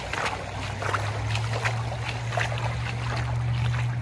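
Creek water running and gurgling over a shallow, rocky riffle, with frequent small splashes, over a steady low hum.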